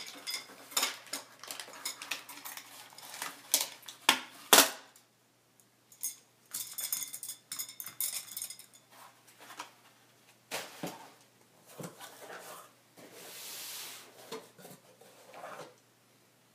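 Metal delta-robot push rods with ball ends clinking and rattling against each other as they are handled and laid down on a table, with sharp knocks, the loudest a pair about four seconds in. A run of ringing metallic clinks comes a few seconds later, and a brief scrape of cardboard boxes being slid around near the end.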